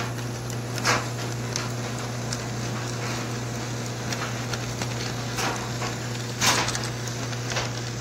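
Model freight train running past on its track: a steady hum with scattered clicks, the loudest about a second in and about six and a half seconds in.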